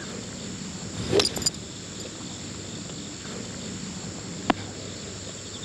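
A golf club striking a teed ball, a sharp crack about a second in, over steady insect chirping; a single short click follows later.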